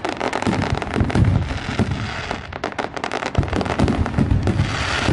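Dense barrage of aerial fireworks bursting overhead: many rapid sharp cracks and pops mixed with repeated low booms.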